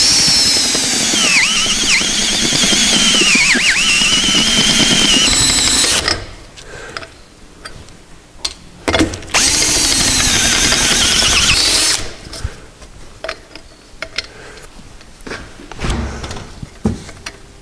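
Cordless drill driving a hole cutter into an exhaust pipe, with a high metallic squeal from the cutter biting the metal. It runs for about six seconds, stops, then runs again for a few seconds, followed by light clicks and knocks of handling.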